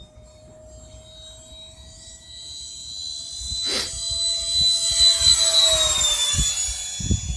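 Sapac EF2000 Eurofighter RC jet's electric ducted fans whining as it makes a low pass. The whine grows steadily louder, then drops in pitch as the jet goes by.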